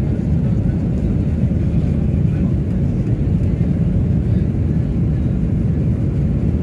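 Steady low rumble of airliner cabin noise, the aircraft's engines running, even and unchanging throughout.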